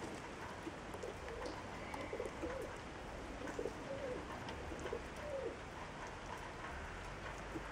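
Faint, low cooing bird calls, a run of short notes in the first half that stop a little past the middle.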